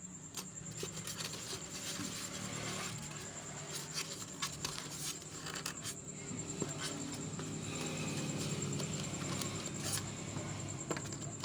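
Small parts being handled: scattered light clicks, taps and scraping, as a screw and screwdriver are picked up and moved about.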